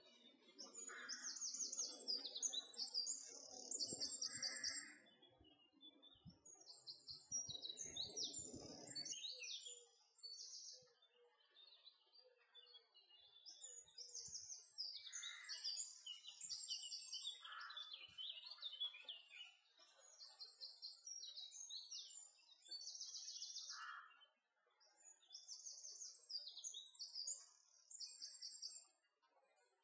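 Songbirds singing, repeated short trilled phrases again and again. A low rustle with a few soft knocks sits under them for about the first nine seconds, then fades.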